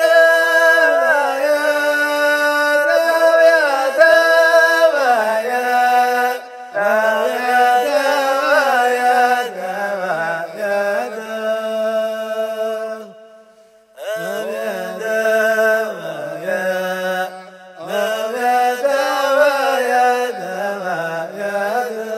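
A male voice chanting a Dhofari wayyad a cappella, in long held notes that waver and slide between pitches. The chant comes in phrases separated by short breaths, with the longest pause just past the middle.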